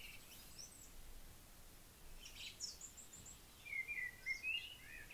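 Faint bird chirps over a low background hiss: a few high chirps about halfway through, then a quick run of lower, louder chirps near the end.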